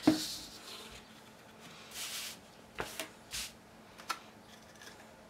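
Cardstock pieces being handled and glued down by hand: a tap just after the start, then a few short paper rustles and small clicks.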